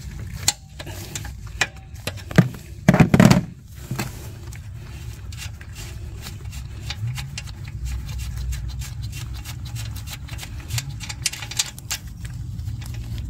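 Wrench clicking and scraping on the exhaust gas temperature sensor's 17 mm hex as it is loosened, with one louder knock about three seconds in. After that come faint metal ticks as the sensor is unscrewed by hand, over a steady low hum.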